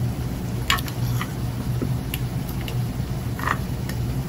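A few light clicks and rustles of hands handling wires inside a metal microscope base, over a steady low background hum.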